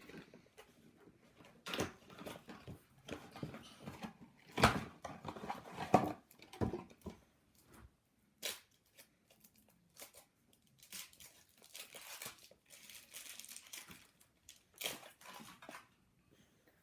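An Easter egg's wrapping crinkling and tearing as it is opened by hand, in short irregular rustles and rips.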